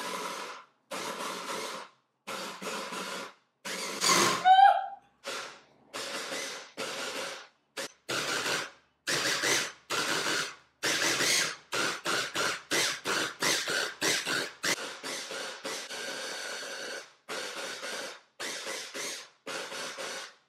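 Electric hand blender's chopper attachment run in many short pulses, grinding dates with coconut oil; each pulse lasts well under a second, with brief gaps between them. About four seconds in comes a short squeal that glides in pitch and is the loudest moment.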